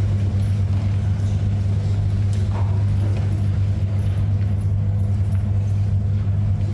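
Steady low electrical hum, unchanging in pitch and level, with no other sound standing out.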